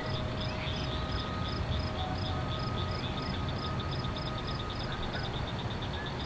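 Insects chirping in a fast, even pulse, about three or four chirps a second, over a steady low rumble. Faint held tones of a distant horn or siren sound in the background.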